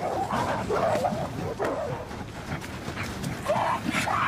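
Mountain gorillas in a scuffle within the group, giving short, repeated cries that bend in pitch and grow louder near the end.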